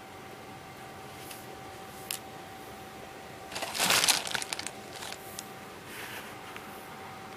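Handling noise from plastic pony beads and stretchy string being worked by hand: a few light clicks, and a brief louder rustling, crackling burst about halfway through.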